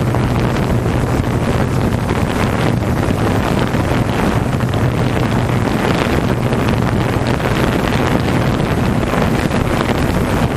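Open-class racing jet skis running with a steady low engine drone, mixed with heavy wind noise on the microphone.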